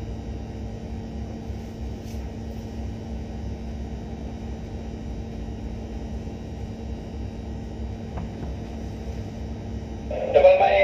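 A boat's engine running steadily: a low rumble with a steady hum. A voice over a handheld radio starts near the end.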